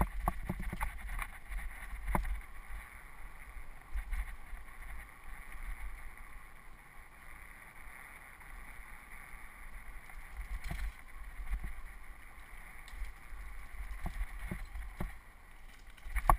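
Wind buffeting a helmet-mounted camera's microphone while a mountain bike rolls along a dirt trail, with a steady hiss and scattered sharp knocks and rattles as the bike goes over roots and bumps.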